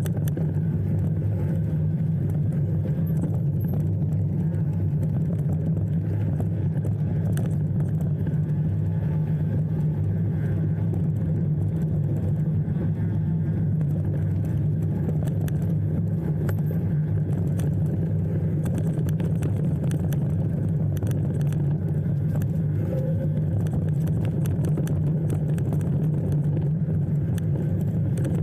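A motor vehicle running steadily: an unbroken low drone, with frequent light rattles and clicks over it.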